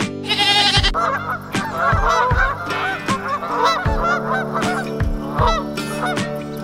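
A domestic goose honking over and over in short calls, after a brief goat bleat in the first second. Background music with a steady beat runs underneath.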